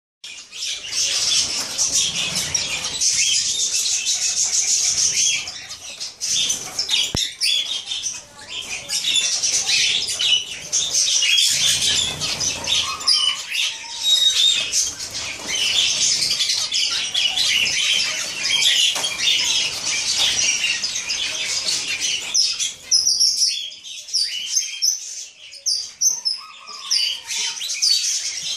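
Zebra finches calling constantly, a dense chatter of short high nasal calls from many birds at once, with flutters of wings as more birds fly in to feed.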